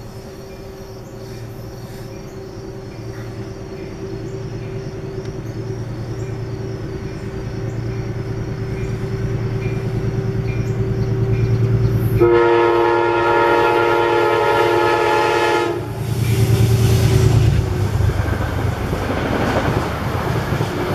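A locomotive-hauled passenger train approaching, its low rumble growing steadily louder. About twelve seconds in, the locomotive sounds its horn in one long blast of about three and a half seconds, then the train runs past close by with loud rumble and wheel clatter.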